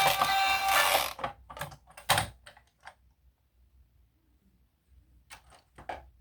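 Background music ends about a second in, followed by a quick run of sharp clicks and taps, a pause, then a few more clicks near the end, like small plastic parts being handled.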